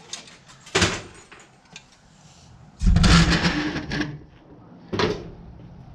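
Steel car-seat track bracket clanking as it is handled and set down on a metal workbench: a sharp knock about a second in, a louder, longer clatter around three seconds in, and another short knock near the end.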